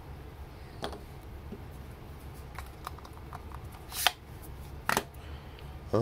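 Small metal screwdriver parts clicking as they are handled: a bit and bit extender pulled apart and set down, with a few light clicks early and two sharper clicks about four and five seconds in.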